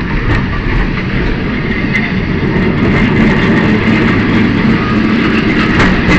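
Lisbon Tram 28 running along its rails: a loud, steady rumble with a few faint clicks.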